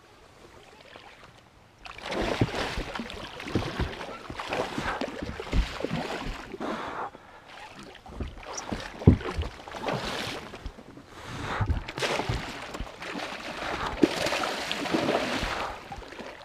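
A hooked muskie thrashing at the surface beside an aluminium boat. Sudden splashing starts about two seconds in and goes on in surges, with knocks and thumps against the boat.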